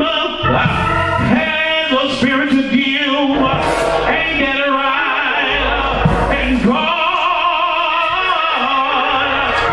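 A man singing into a handheld microphone with a musical accompaniment, in long, drawn-out sung lines rather than speech.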